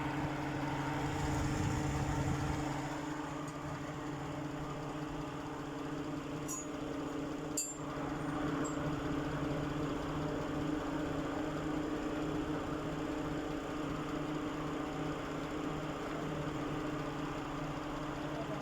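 Lexus RX330's 3.3-litre V6 idling steadily, an even hum with no stumble, running on its newly replaced wire harness and engine computer. A single light click about eight seconds in.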